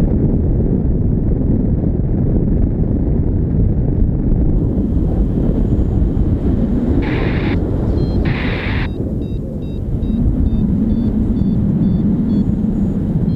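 Airflow in paraglider flight buffeting the camera microphone: a loud steady rushing rumble. From about seven seconds in come two short bursts of hiss, followed by a run of faint, quick high beeps.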